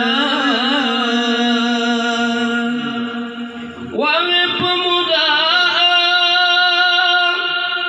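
A man sings a slow, chant-like melody into a microphone in Acehnese, with no clear accompaniment. He holds a long, ornamented note, and about four seconds in he breaks off briefly and starts a new, higher held phrase.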